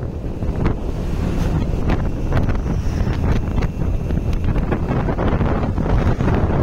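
Wind rushing over the phone's microphone on a moving motorcycle: a steady, loud, mostly low-pitched noise that flutters constantly.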